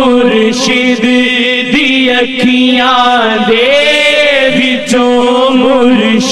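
Naat sung in Punjabi: a voice chanting a long, winding devotional line over a steady held low note.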